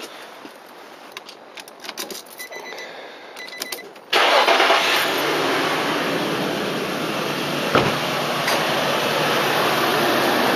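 Keys clicking in the ignition and a brief high electronic tone, then, about four seconds in, the 2005 Nissan Stagea's engine starts and runs with a loud, steady rushing noise.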